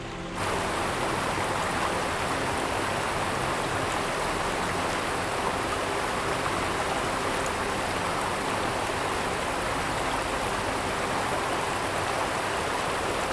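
Water rushing steadily down a small rocky waterfall in a forest stream, cutting in suddenly about half a second in.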